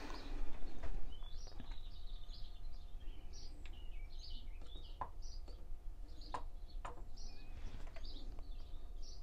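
A small bird chirping over and over in short high notes, with a few sharp metallic clicks and knocks as a magnetic-base dial indicator is handled and set on the lathe bed.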